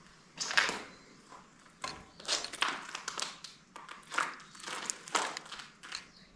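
A person moving about on foot: about six irregular scuffs and rustles, each under a second, spaced unevenly over a few seconds.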